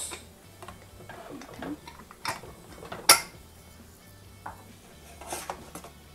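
Metal clicks and clinks of a stovetop pressure cooker being opened, its pressure already down: the weight lifted off the vent, then the lid turned and worked loose, with one sharp clack about three seconds in and a few quicker clicks near the end.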